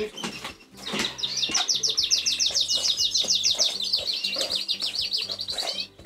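Fife canary singing a long, rapid trill of evenly repeated high notes, about ten a second, from about a second in to near the end, with other canary chirps around it.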